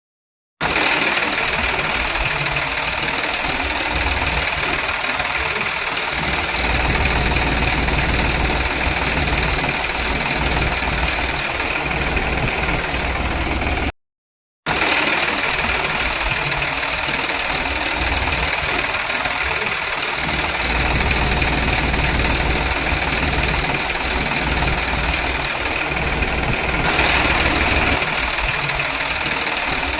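Small motor running steadily, with a mechanical rumble and whine; the sound cuts out briefly about halfway through and resumes.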